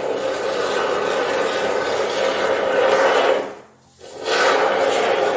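Straw-nozzle aerosol can of polyurethane expanding foam spraying with a steady hiss. It stops about three and a half seconds in and starts again half a second later. This is the type of can whose flow cannot be controlled and keeps going after the trigger is released.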